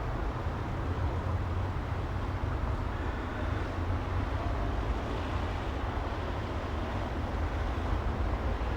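Steady city traffic noise: a continuous low rumble of vehicles with a hiss of tyres and no single passing vehicle standing out.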